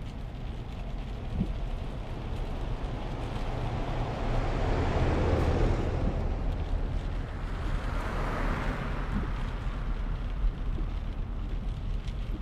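Steady low rumble of road noise inside a moving car's cabin, with two swelling whooshes of passing traffic, about five and eight seconds in.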